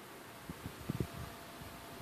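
A handful of soft low thumps, bunched about half a second to a second in, over faint steady room hiss.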